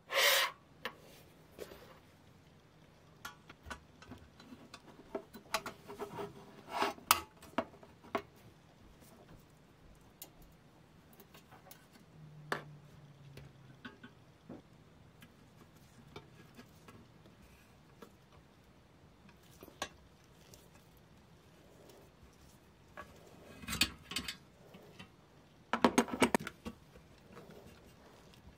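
Scattered clinks, taps and knocks of small metal parts and tools being handled, with louder clusters at the very start, about a quarter of the way in, and twice near the end.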